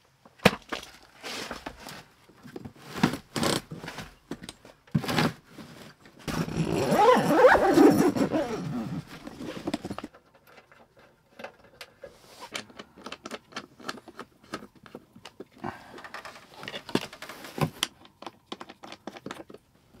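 Handling noises as the portable diesel heater and its battery box are set up and wired: scattered clicks, knocks and clothing rustle, with a louder scraping rustle lasting about four seconds near the middle.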